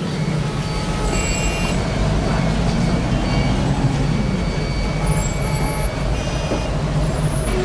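Dense street traffic of cars, taxis and motorcycles at a traffic light, their engines running in a steady low rumble. Brief high-pitched tones come in twice, about a second in and again around five seconds in.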